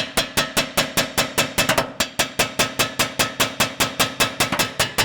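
A hammer striking a steel suspension part in a fast, steady rhythm of about five blows a second, each hit ringing metallically. It is knocking a stuck old upper camber arm out of the Honda Civic's front suspension.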